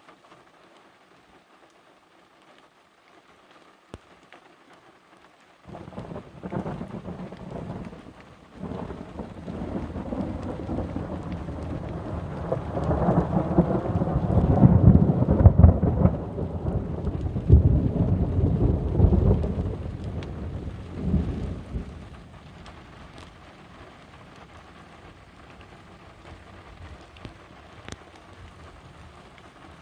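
Rain falling steadily. About six seconds in, thunder breaks suddenly and rolls on for about sixteen seconds, loudest midway, then fades back to the rain.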